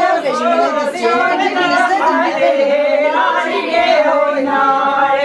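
Women singing a Kurdish folk song without accompaniment, in a long, wavering, ornamented melody.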